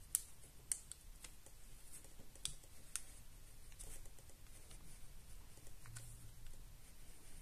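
Graphite pencil scratching faintly on paper as a drawing's lines are traced over with heavy pressure to transfer them to the sheet beneath, with scattered small ticks.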